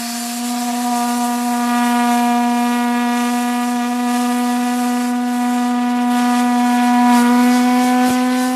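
Steam whistle blowing one long, loud, steady note, going slightly higher and louder about seven seconds in. It is sounding the hour.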